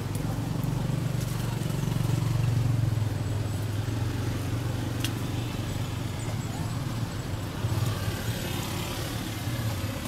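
A motor vehicle engine running, a low steady hum that swells about two seconds in and then settles, with a single sharp click about halfway through.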